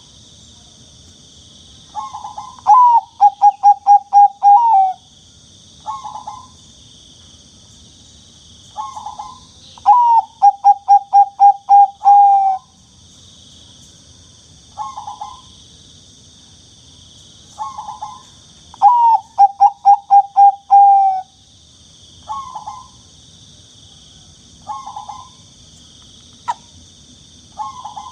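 Zebra dove (perkutut) cooing. Three full songs, each an opening coo followed by a run of about eight quick, even coos, with short single coos between them.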